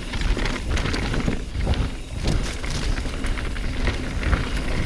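Mountain bike rolling fast down a dirt singletrack: knobby tyres rumbling over dirt and small rocks, with many small clicks and rattles from the bike over a steady low rumble.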